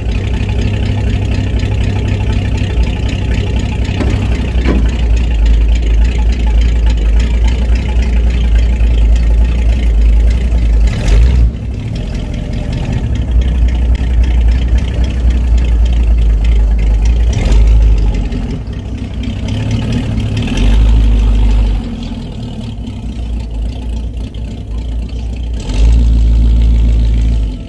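Engine of a 1979 Ford pickup truck running, rising and falling in level, as the truck is driven off and parked.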